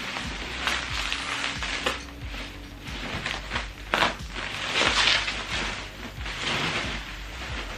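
Packaging being pulled open and unwrapped, an irregular rustling and crinkling with sharper crackles about four and five seconds in.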